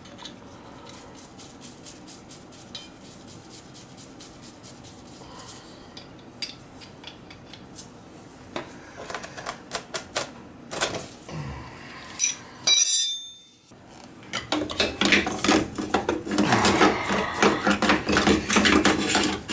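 Metal hand tools clicking and clinking against an oil burner's nozzle and electrode assembly as it is worked with a wrench. There is a short, louder scrape about twelve seconds in, and dense metallic rattling and clicking over the last five seconds.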